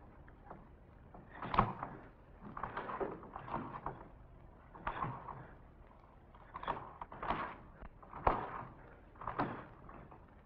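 A series of about nine knocks, unevenly spaced at roughly one a second, each with a short room echo.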